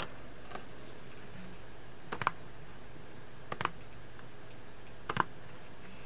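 Light tapping: three brief clusters of two or three quick clicks each, about a second and a half apart, over a faint steady hum.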